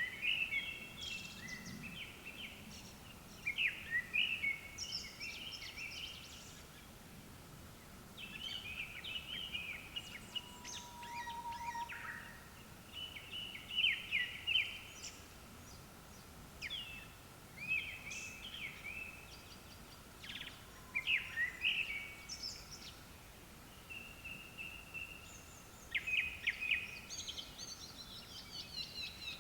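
Japanese thrushes singing: short, varied whistled and trilled phrases repeated with brief pauses, from more than one bird, at times overlapping.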